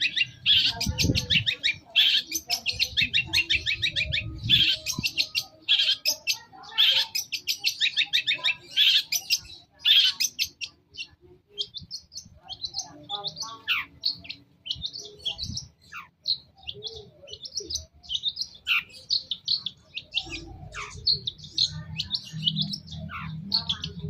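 Long-tailed shrike singing: rapid, harsh chattering bursts for about the first half, then sparser notes with quick downward-sliding calls.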